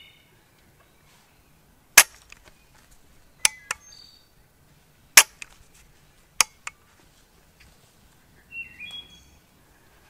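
Cheap shotgun's firing pin snapping on shells that fail to fire: four sharp metallic clicks about a second and a half apart, each a misfire, with a lighter click after each. A bird calls briefly near the end.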